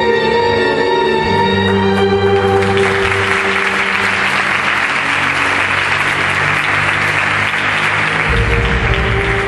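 Orchestral string music playing, with an audience breaking into applause about two and a half seconds in and clapping steadily until near the end.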